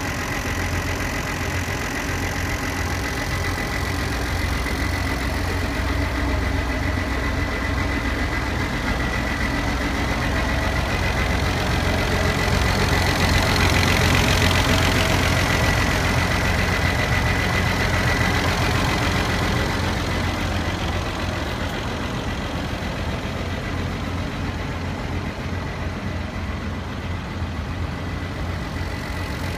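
Massey Ferguson 1215 tractor's turbocharged diesel engine idling steadily, with a thin steady high whine over the engine note. It is louder for several seconds in the middle, heard up close to the engine block.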